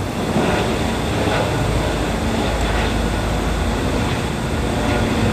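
Steady low mechanical rumble with a faint steady hum over it, like an engine or machine running continuously.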